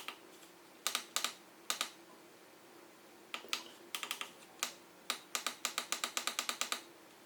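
Small push-buttons on the Andonstar AD249S-M Plus digital microscope clicking as its menu is navigated: a few separate clicks and pairs, then a quick run of presses at about six a second near the end.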